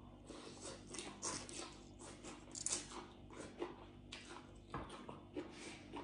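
A person chewing a mouthful of rice noodle salad, faint irregular wet smacks and small mouth clicks.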